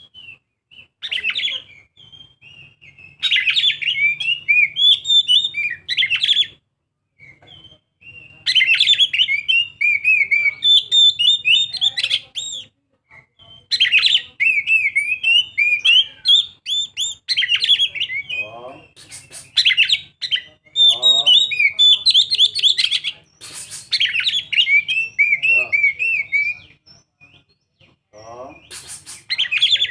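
A young Oriental magpie-robin singing: repeated bursts of rapid, varied chirps and whistled notes, each a few seconds long with short pauses between, over a faint low hum.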